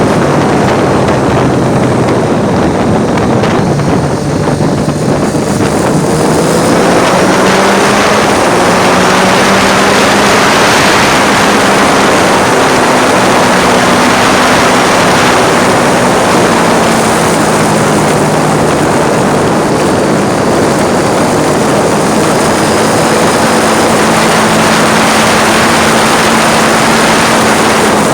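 Triumph Street Triple's 675 cc three-cylinder engine under way on a ride, its pitch climbing and settling several times as it pulls through the revs, buried in heavy wind noise on a phone microphone.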